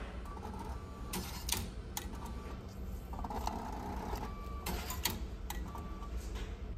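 Meal-ticket vending machine printing and dispensing two paper tickets: a short whirring print run about three seconds in, with several sharp clicks as the mechanism works and the tickets drop into the outlet tray, over a steady low hum.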